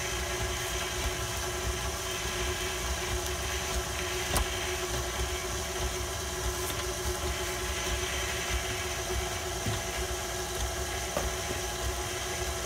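KitchenAid Classic Plus stand mixer's motor running steadily, its flat beater turning through cake batter in the steel bowl, with a single sharp click about four seconds in.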